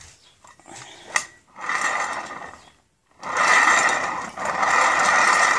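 Swivel plate taken from a bar stool being turned by hand: a click, then two long spins of rolling, rubbing noise with a steady high-pitched whir through them, the second spin longer.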